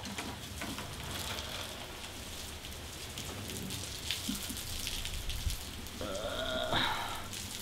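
Steady rain falling outside an open front door, with many drops ticking on hard surfaces. About six seconds in, a brief pitched call or whine rises above the rain for about a second.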